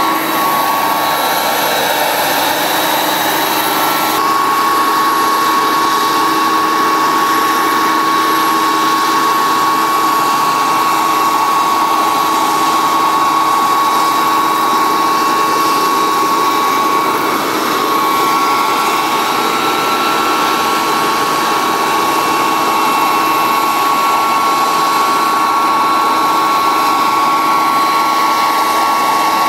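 JetCat model jet turbine powering a large radio-controlled Vario CH-53 Super Stallion scale helicopter with a 2-metre rotor, running steadily in a hover: a steady high whine over a rushing noise.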